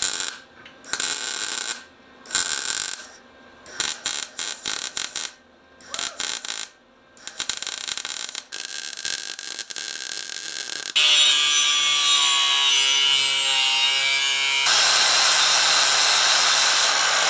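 MIG welder laying weld on a steel engine-mount bracket in a series of short bursts with brief pauses between them. About eleven seconds in, an angle grinder takes over and runs steadily, grinding the weld down.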